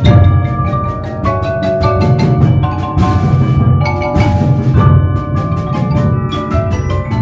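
Percussion ensemble playing a carol arrangement on mallet instruments: marimba, vibraphone, glockenspiel and tubular chimes. Quick mallet strokes over held ringing notes, with a full low marimba register underneath.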